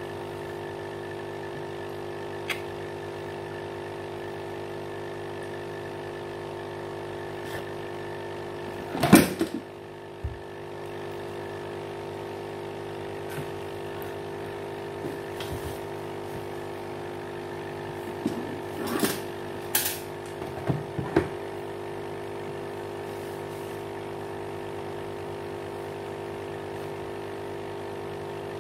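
Aquarium pump humming steadily, a buzz with many even overtones. A few short knocks and taps break in, the loudest about nine seconds in and several more around twenty seconds.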